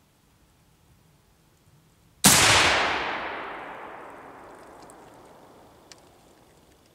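A single rifle shot about two seconds in, a zeroing shot from a bench rest, followed by a long echo that dies away over about three seconds.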